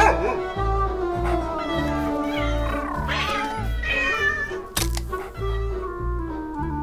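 A domestic cat meowing three times, at the start, about three seconds in and again about four seconds in, over background music with a steady beat.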